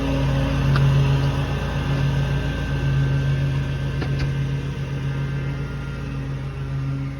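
An engine running steadily at a constant speed, with a few light metallic clicks about one second and four seconds in.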